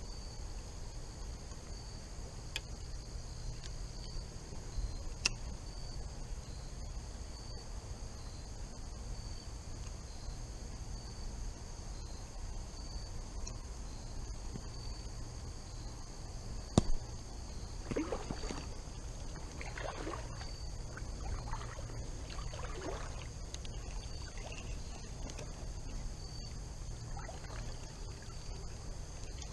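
Water sloshing and splashing in a shallow creek, in irregular bursts starting a little past the middle. Under it runs a steady insect trill, with a few sharp clicks earlier on.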